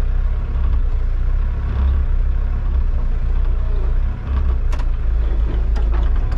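John Deere tractor engine running steadily with a heavy low rumble, with a few short clicks in the second half.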